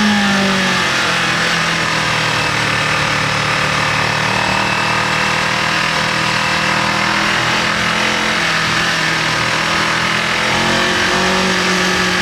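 Kawasaki KLE500 motorcycle's parallel-twin engine running on the road under a steady rush of wind noise. Its pitch drops in the first second, holds steady, then rises a little near the end as the throttle opens.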